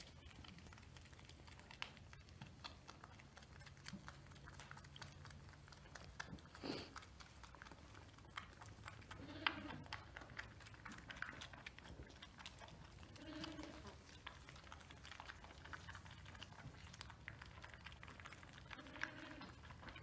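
Sheep bleating softly: three short, low bleats a few seconds apart, over faint wet clicking as a ewe licks her newborn lamb clean.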